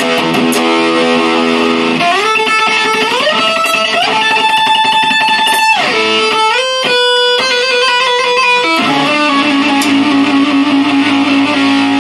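Gibson SG electric guitar played through an amp. It opens on a held chord, then plays single notes that rise in pitch in steps and sustain, then a quicker run of notes, and ends on a ringing chord.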